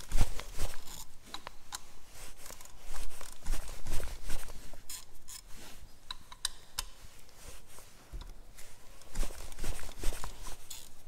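Socket and bar working on the water pump pulley bolts of a Vauxhall Corsa D 1.4 petrol engine: irregular metal clicks and knocks, with several louder knocks, as the three bolts are cracked loose with the belt still on.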